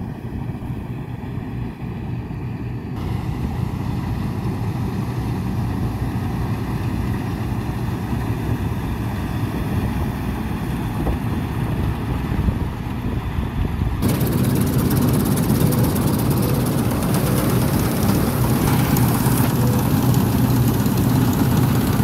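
TX34 combine harvester running while cutting wheat: a steady engine drone with the clatter of the header and reel. It grows louder and fuller in two steps, about three seconds in and again about fourteen seconds in.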